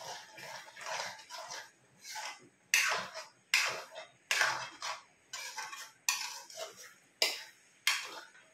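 Metal spoon scraping and clinking against a metal kadhai as thick spinach-and-paneer gravy is stirred, in a steady run of strokes about one every two-thirds of a second.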